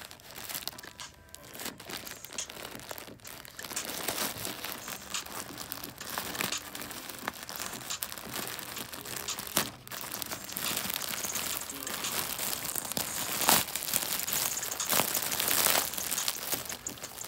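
Shiny plastic poly mailer crinkling and tearing as it is ripped open by hand. The handling grows louder over time, with the sharpest rips near the end.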